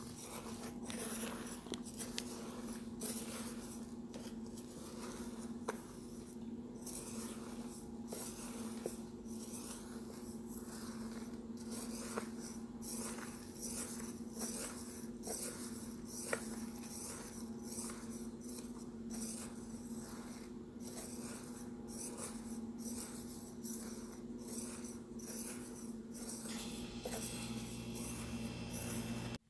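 Kimchi seasoning paste of red chili flakes being stirred and scraped in a stainless steel bowl, a continuous run of quick rubbing, scraping strokes over a steady low hum.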